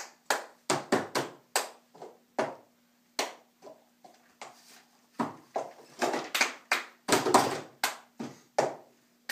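Children's cup-song rhythm: hand claps and cups knocked and slapped on a table, a run of sharp taps that gets busier about halfway through.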